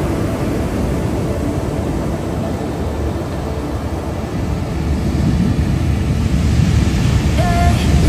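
Ocean surf breaking on a beach: a steady wash of noise, mostly low, that grows louder in the second half.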